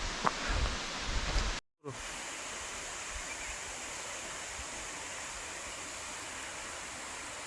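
Steady, even rushing of a waterfall. Low bumps on the microphone in the first second and a half, then a brief cut to silence before the rushing settles in.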